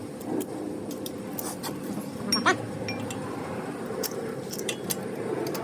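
Light metallic clinks of hand tools: a socket extension and 15 mm socket being fitted to the ratchet and set on the upper brake caliper bracket bolt.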